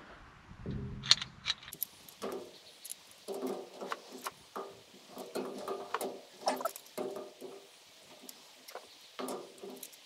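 Plastic packaging crackling, clicking and squeaking in a quick irregular run as it is cut and pulled open by hand.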